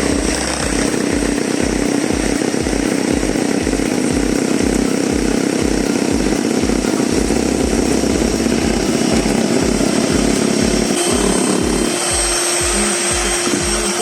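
Electric blender running steadily, mixing the gelatin mixture, with its whir changing about twelve seconds in. Background music with a steady beat of about two a second plays underneath.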